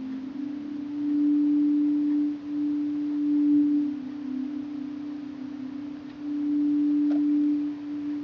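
Ambient drone music of steady, pure low tones that shift slightly in pitch and swell louder twice, about a second in and again past the middle.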